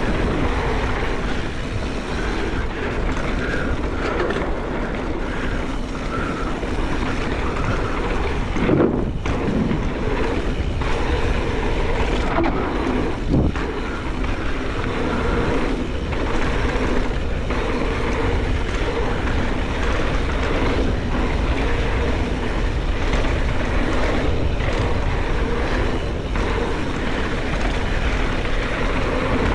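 Mountain bike descending a dirt trail at speed: wind rushing over the microphone and tyres running over the ground, with the bike rattling and knocking over bumps. Two harder jolts land about nine and thirteen seconds in.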